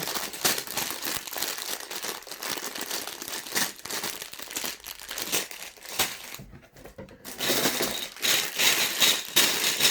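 Plastic bags of Lego pieces crinkling as they are handled, with a short lull about two-thirds of the way through and louder crinkling near the end.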